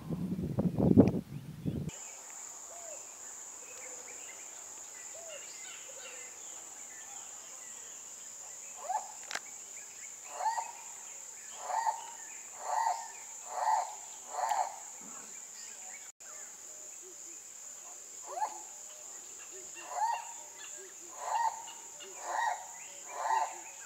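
A turaco giving a series of short calls, about one a second, in two runs over a steady high-pitched insect buzz. In the first two seconds, before the cut, there is a loud low rumble.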